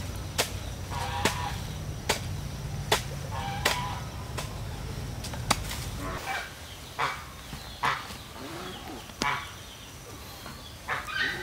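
Repeated sharp strikes on bamboo, about one a second, with chickens clucking between them. A low rumble underneath stops about halfway through.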